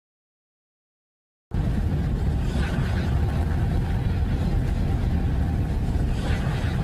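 Dead silence for about a second and a half, then a steady, dense rumbling noise with hiss above it starts abruptly: an eerie space-style ambience offered as the sound of a planet or moon.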